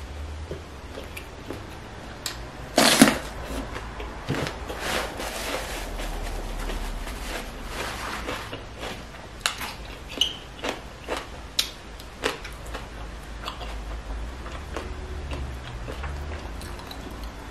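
Mukbang eating sounds: a loud crunchy bite about three seconds in, then crunchy chewing with many short sharp clicks.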